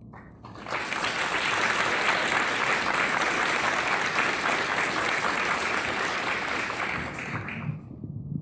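Audience applause, starting about half a second in, holding steady and dying away near the end.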